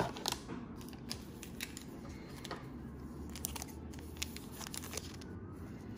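Trading cards and their plastic cello-pack wrapping being handled: a run of sharp, irregular clicks and crinkles.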